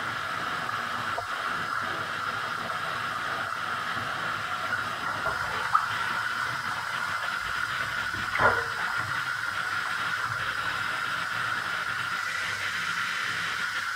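Water running from a bath tap into a filling bathtub, a steady hiss. A sharp knock comes about six seconds in and a louder knock about eight and a half seconds in.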